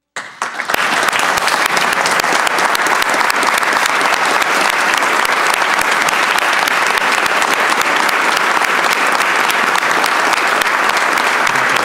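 A large crowd of people applauding. The clapping starts suddenly, fills out within the first second and then holds steady and dense.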